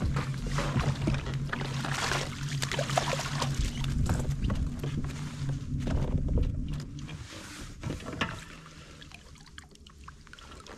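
Kayak on the water: water sloshing and knocks against the hull, with a steady low hum that fades out about seven seconds in, after which only scattered knocks remain.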